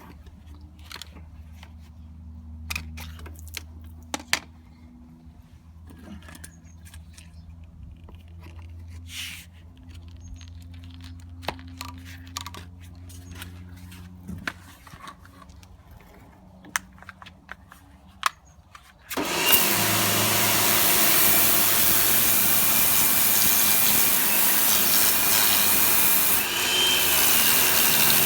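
Kärcher pressure washer starting up suddenly about two-thirds of the way in and then running steadily with a loud, even hiss. Before it starts, a low hum with scattered clicks and knocks.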